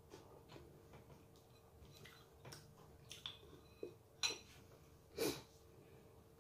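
Quiet sounds of a person eating bread: chewing and mouth noises, with a few short sniffs, the loudest about five seconds in. A faint steady hum runs underneath.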